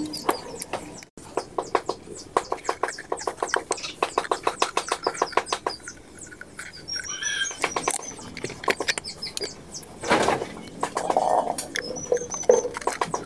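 Small birds chirping and tweeting, over repeated runs of rapid, even clicks, several a second, for a few seconds near the start.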